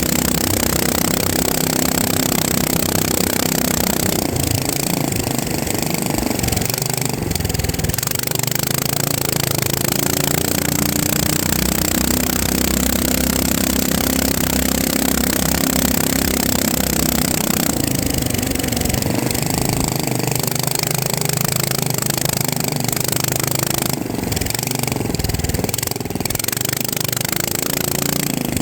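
FPV racing drone's electric motors and propellers running with a loud, steady whir whose pitch shifts up and down with the throttle.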